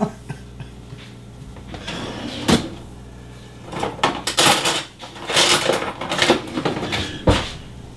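Kitchen utensil drawer being opened and rummaged through, with utensils clattering inside it, then a sharp knock near the end.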